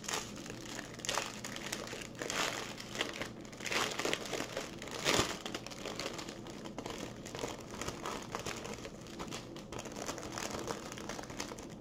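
A clear plastic bag crinkling as it is handled and opened, and small packets of diamond painting drills are pulled out of it. A sharp crackle about five seconds in is the loudest moment.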